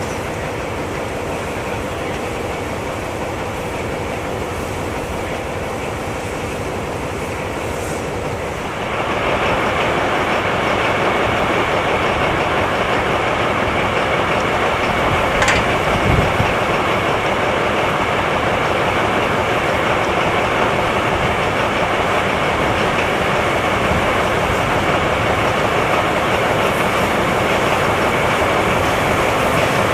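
Harz narrow-gauge steam train on the move, a steady rumble and hiss with wheels on the track, growing louder and more hissing about nine seconds in. A single sharp click comes in the middle.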